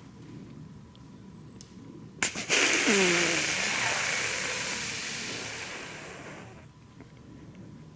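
Whitetail buck snort-wheezing: two sharp snorts, then a long hissing wheeze forced through the nose that fades away over about four seconds. It is the buck's aggressive dominance call.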